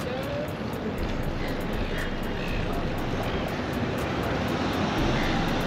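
Steady wind rushing over a handlebar-mounted microphone, mixed with tyre noise from a bike riding at speed on a wheelie. It grows a little louder toward the end.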